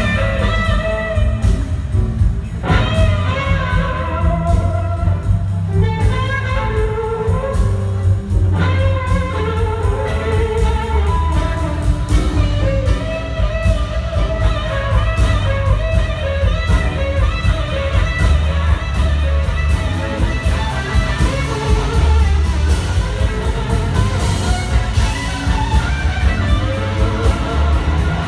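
Live blues-rock band playing an instrumental passage: electric guitar lines over rhythm guitars, bass and drum kit.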